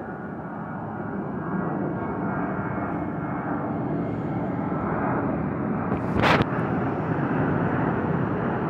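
Airplane flying overhead: a steady rumble that grows slightly louder over the first few seconds, with a brief burst of noise about six seconds in.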